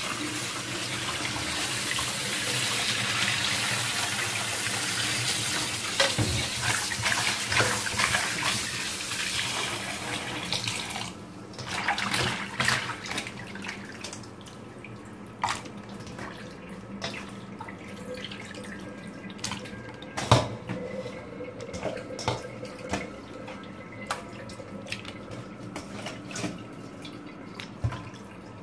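Kitchen tap running into a steel bowl in a steel sink while hands rinse pieces of fish. The water stops about eleven seconds in, and scattered clinks and knocks follow as the wet pieces are handled in the bowl.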